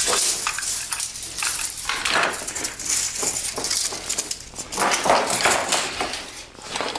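A Merle corner band clamp's long band and metal corner jaws rattling and clinking as the coiled band is shaken out and laid over a frame: a run of irregular jangling clatters, loudest about five seconds in.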